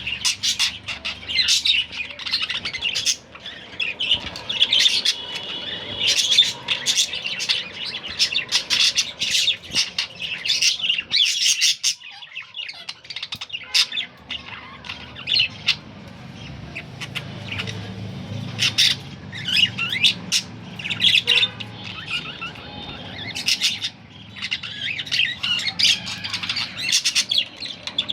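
Male budgerigars chirping continuously in dense, rapid chatter with sharp squawks mixed in, quieting briefly about halfway through.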